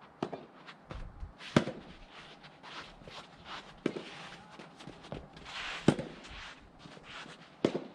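Soft tennis rally: rackets striking the rubber ball with sharp pops about every two seconds, four strong hits with fainter ticks between.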